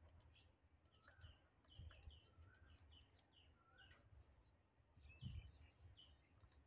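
Near silence with faint birds chirping in short repeated calls over a low background rumble, and one dull low thump a little after the middle.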